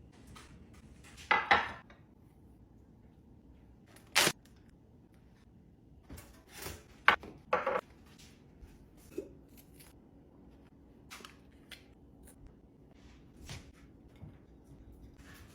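Sparse handling noises of kitchen items being restocked: short rustles and sharp clicks several seconds apart, with a cluster of them around the middle.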